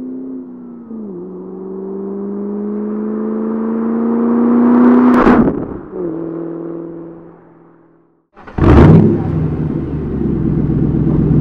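A 2004 Ford Mustang GT's V8 accelerating toward and past the listener: the engine note steps down about a second in, climbs steadily, peaks loudly as the car passes about five seconds in, then drops in pitch and fades away. After a moment of silence a sudden loud burst gives way to a steady deep engine rumble.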